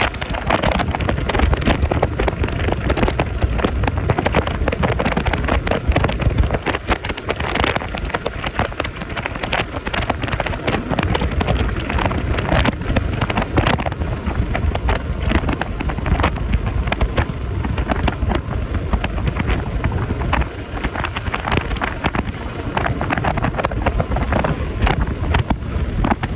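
Wind rushing and crackling over the phone's microphone on a moving scooter, over a steady bed of road noise.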